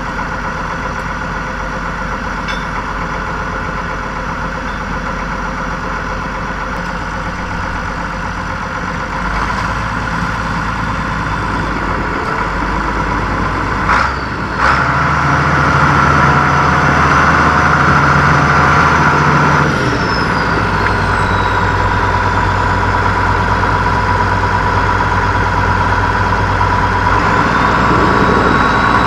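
Tractor engine running steadily. It picks up speed about nine seconds in, and after two sharp knocks around fourteen seconds it runs harder for about five seconds, then drops back to a steadier speed.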